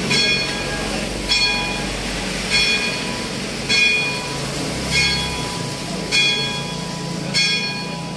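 Church bell tolling: single ringing strikes about every 1.2 seconds, seven in all.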